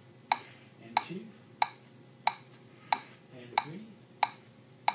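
Metronome ticking at 92 beats per minute, a short sharp click about every two-thirds of a second.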